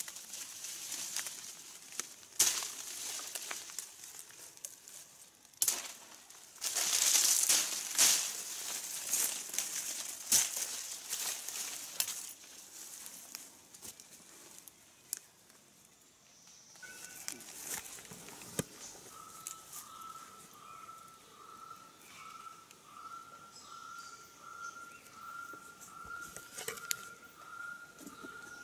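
Crackling and rustling of dry leaves and twigs, with sharp knocks and snaps, as a man crouched on the forest floor works sticks by hand to set a squirrel trap. The handling is loudest in a long scraping rustle a few seconds in. From about halfway through, an animal in the forest repeats a clear piping note a little more than once a second.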